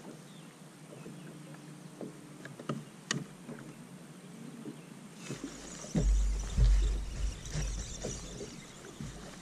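Small clicks and knocks of a fishing rod and reel being worked on a boat deck. From about five seconds in comes a louder rumble with hiss over it, loudest around six to seven seconds in, as the rod bends into a hooked fish.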